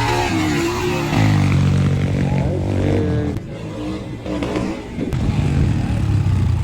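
Freshly serviced motorcycle engine running under way, its pitch rising and falling with the throttle; it eases off and goes quieter about three seconds in, then picks up again about five seconds in.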